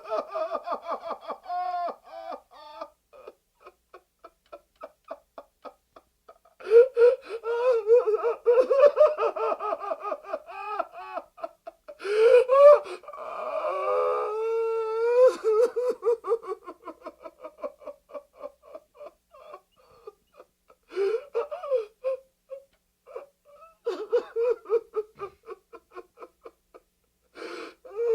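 A man crying and sobbing in distress: long wavering wails broken by rows of short, rapid sobbing gasps, with quieter stretches of halting breaths in between.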